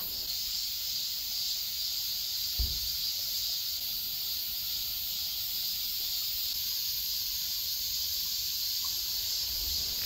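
Steady chorus of summer insects, a high-pitched, even chirring with no breaks. A brief low thump comes about two and a half seconds in.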